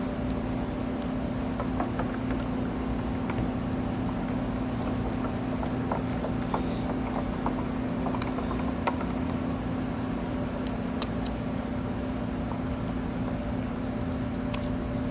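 Steady low machine hum with a few faint steady tones above it, and scattered light clicks and taps throughout.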